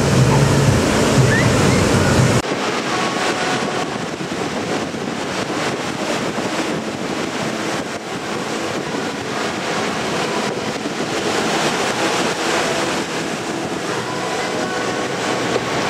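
Sea surf breaking and washing up over sand as an even hiss, with wind on the microphone. A louder low hum in the first couple of seconds cuts off suddenly.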